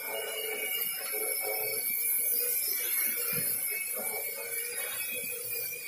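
Quadcopter drone's electric motors and propellers running steadily in a hover, with a steady whine.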